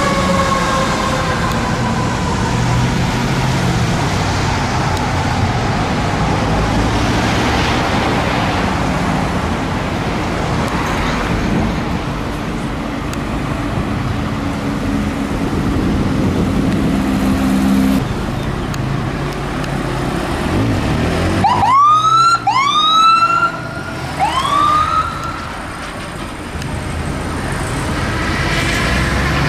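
A fire truck's mechanical Q siren winds down in pitch over the rumble of a diesel engine. About twenty seconds in, an ambulance's electronic siren gives three quick whoops, and near the end a siren starts to wail again.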